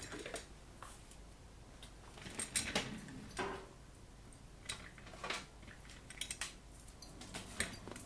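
Small hard objects clicking and clinking as they are handled and set down on a workbench: irregular short knocks, in small clusters about 2.5, 5.3, 6.3 and 7.5 seconds in.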